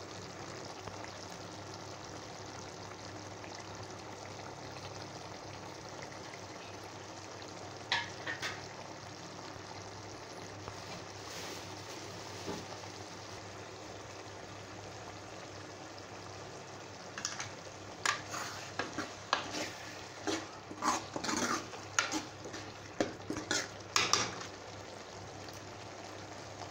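Mushroom pepper gravy sizzling steadily in a pan. A spoon clicks against the pan twice about a third of the way in, then knocks and scrapes it repeatedly over several seconds near the end as the gravy is stirred.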